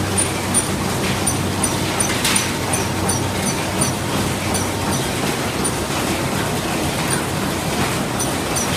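Ham sausage machine running: a steady mechanical hum with light, high ticks repeating every half second or so and an occasional louder click.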